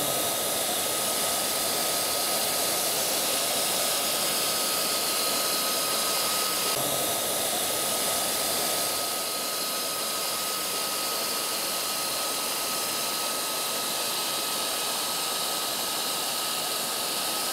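Hand-held hot-air plastic welding gun blowing steadily, with a constant high whine over its air rush. It is melting the bitumen underside of an EPDM joint tape to weld a vertical seam onto a concrete wall.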